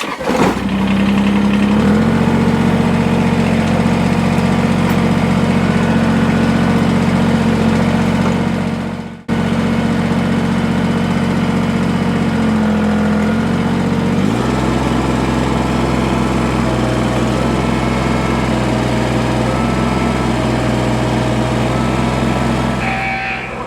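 Tractor engine running hard as the front-end loader lifts a heavy log, revving up within the first two seconds. It cuts out for an instant about nine seconds in and settles to a lower engine speed about fourteen seconds in.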